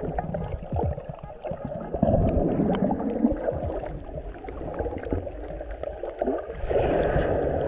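Churning, bubbling water heard underwater, with scattered clicks and a low rumble. A busier burst of bubbling comes near the end.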